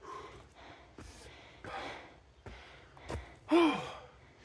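A man breathing hard, out of breath from climbing a steep trail: a run of heavy exhaled puffs, then a voiced sigh that falls in pitch about three and a half seconds in.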